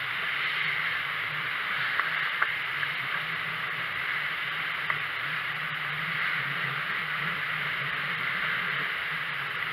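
Water rushing along the hull of a trailer yacht sailing fast through choppy sea, with wind on the microphone. The rush is steady, with a few light clicks about two seconds in and again near five seconds.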